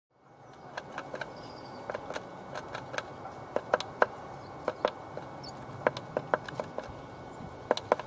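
Irregular sharp taps and scratches, a few each second, from a tit's beak and claws working at the entrance hole of a wooden nest box. Faint high bird calls come in once or twice.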